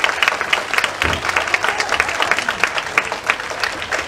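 Arena crowd applauding: many hands clapping at once in a steady, dense patter.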